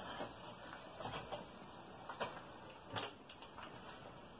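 Faint rubbing at a whiteboard with a few light, sharp taps, the loudest about three seconds in, as the board is wiped and a marker is set against it.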